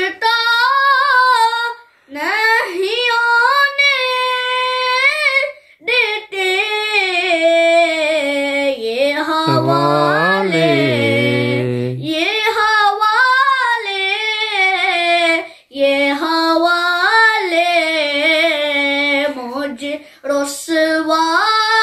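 A boy singing an Urdu–Punjabi naat unaccompanied, in long drawn-out melodic phrases with short pauses for breath.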